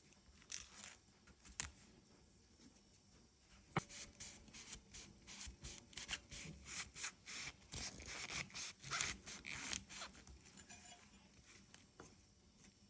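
Raw cauliflower being cut and trimmed on a cutting board, heard as a quick run of short, crisp crunching and scraping strokes from about four seconds in until about ten seconds in, with a few single clicks before.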